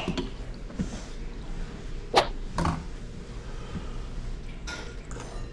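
Tableware clinking at a meal table: two sharp knocks about half a second apart, the first the louder, over faint room noise.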